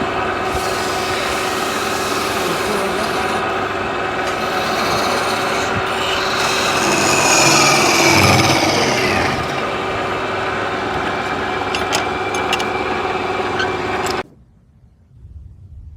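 Wood lathe running, with a turning tool scraping and cutting the spinning wood: a steady motor hum under a rasping cutting noise that swells midway, then stops abruptly near the end.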